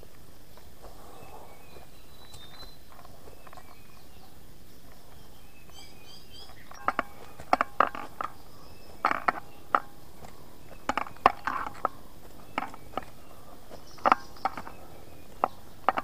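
Hiker's footsteps on a forest trail: a quiet steady background for the first several seconds, then a run of sharp, irregular clicks and knocks from about seven seconds in.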